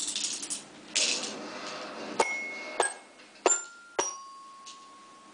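Four light clinks of small hard objects starting about two seconds in, each followed by a short ringing tone, the last one ringing for about a second; before them, a hissing noise for about a second and a half.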